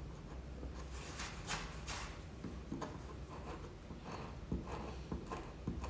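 Steel hand chisel scraping and paring old glue out of a wooden door joint, in short irregular strokes that start about a second in, with a few dull knocks.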